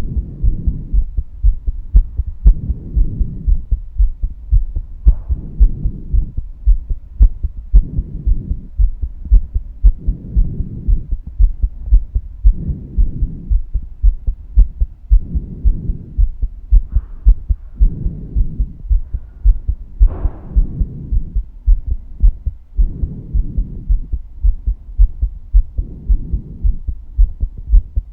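A woman's heartbeat: a steady run of low thuds, with a soft rushing swell every two to three seconds.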